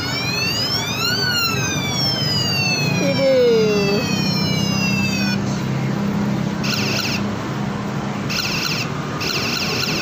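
Battery-powered police-siren bicycle bell sounding a wail: the pitch rises to a peak about a second in, then falls slowly for about four seconds. It then switches to another of its sounds, a harsh buzzing tone in three short blasts, the last one longer.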